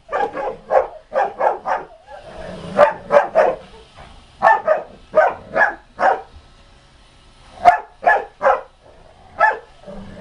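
Rottweiler barking in quick bursts of two to four deep barks, with short pauses between the bursts.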